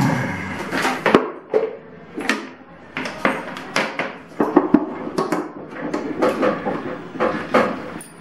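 Irregular clicks, knocks and clatter of hands handling the parts of a JK 721 vinyl cutting plotter; there is no steady motor sound.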